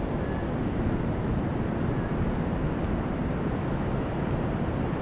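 Steady rushing noise of wind on the microphone and surf, heaviest in the low end, with no distinct events.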